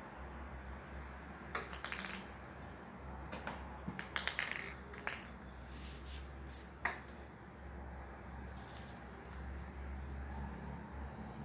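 Small purple rattle-ball cat toy, hanging from a string on a wand, rattling in short bursts about half a dozen times as it swings and gets batted by the cats.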